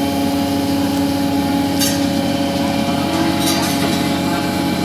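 Machinery on a longline fishing boat running with a steady, even hum, with a couple of short metallic clinks about two and three and a half seconds in.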